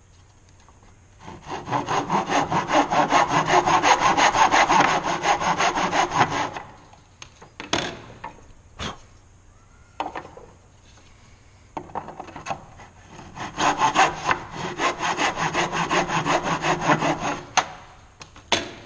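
Back saw cutting across a wooden block in a plastic miter box: two spells of rapid, rhythmic strokes, each about five seconds, making stop cuts 3/16 inch deep for the sides of a groove. A few sharp knocks and clicks come between the two spells and near the end.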